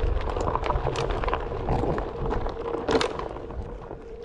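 Skateboard wheels rolling over a packed dirt trail: a steady low rumble with small clicks and rattles from grit and roots, a steady hum underneath, and a sharper knock about three seconds in.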